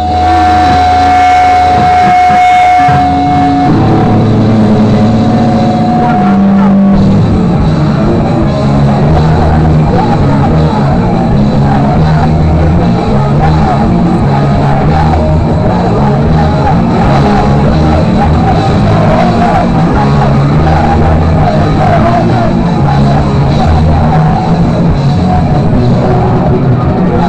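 Live rock band playing loud, recorded from within the audience. Held, ringing notes sustain for the first few seconds, then about four seconds in the music turns dense and driving with drums and a moving bass line.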